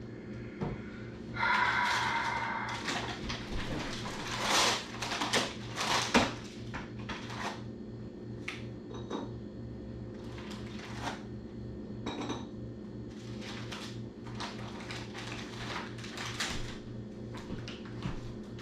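Dishes, containers and packaging being handled and set down on a table: a run of clinks, knocks and rustling, with a louder scraping sound about a second and a half in. A steady low hum runs underneath.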